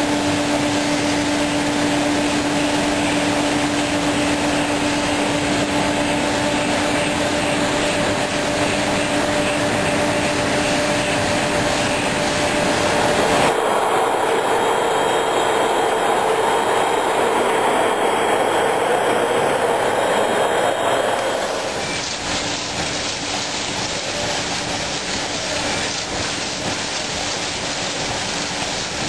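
Glass bottle factory machinery running: a loud, steady noise with a constant low hum. The mix changes abruptly about 13 seconds in, turning louder and fuller, and again about 21 seconds in, dropping back somewhat.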